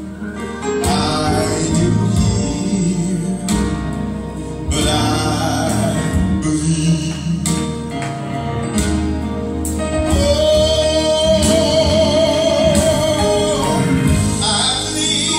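A man singing a gospel song into a handheld microphone over an instrumental backing track, holding one long wavering note about two-thirds of the way in.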